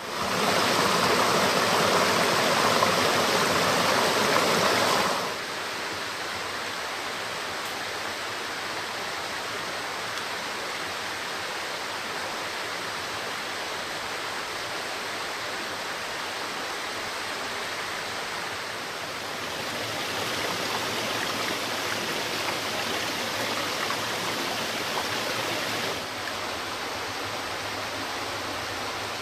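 Water running over rocks in a small woodland stream, a steady rushing that is louder for the first five seconds and again from about 20 to 26 seconds.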